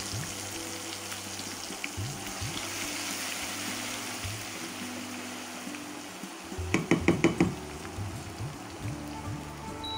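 Whole spices and onion paste sizzling in hot oil in a frying pan as they are stirred with a wooden spatula, under soft background music. About seven seconds in comes a quick run of about six sharp knocks.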